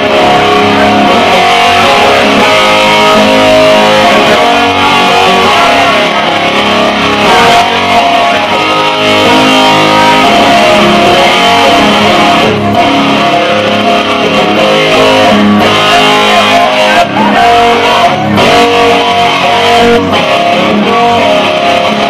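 Electric guitar played live in a rock song, very loud and continuous.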